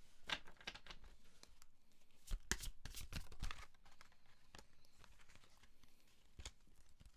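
Tarot cards being shuffled and handled: irregular soft card slaps, flicks and rustles, busiest a few seconds in.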